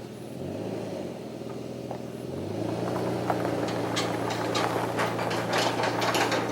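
A motor vehicle's engine running and pulling away, its pitch stepping up twice, with clicking and rattling over the second half.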